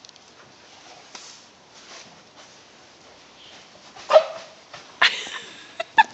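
A chicken making a few short, sharp hiccup-like calls after about four quiet seconds: one about four seconds in, then more around five and six seconds.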